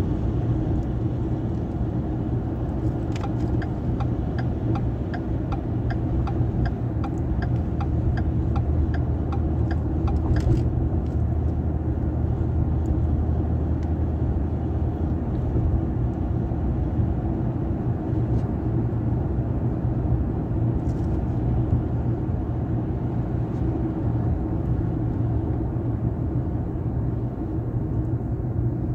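Road noise inside a moving pickup's cabin: a steady low rumble of engine and tyres at highway speed. From about three seconds in to about ten seconds in, there is a run of even ticks, about two a second.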